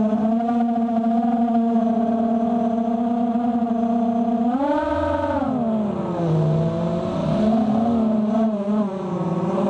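Racing quadcopter's Cobra 2206 2100kv brushless motors and 5-inch propellers whining in fast low flight. The pitch holds steady, rises with a burst of throttle about five seconds in, then drops and wavers before climbing again near the end.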